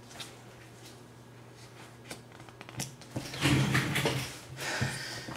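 Playing cards handled on a table top: a few soft clicks and taps of cards, then a louder rustle of cards about three seconds in.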